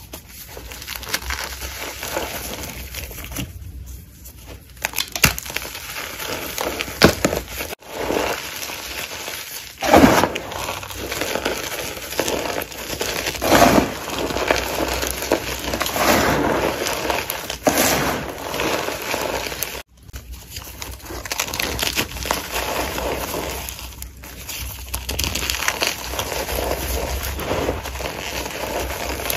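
Soft chalk and cornstarch blocks being crushed and crumbled, crunching and crackling in uneven bursts. The sound breaks off sharply twice, about a third and two-thirds of the way through.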